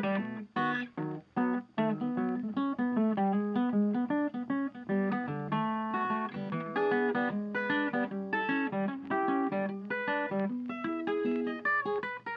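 Background music played on guitar: a steady stream of plucked notes.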